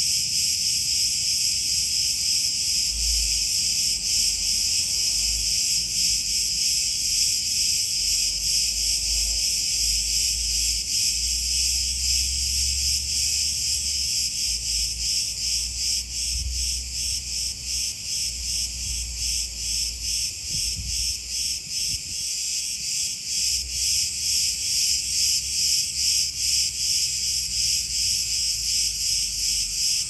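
A dense chorus of cicadas, a loud continuous high-pitched buzz that pulses in a quick, regular rhythm, the pulsing growing more marked in the second half.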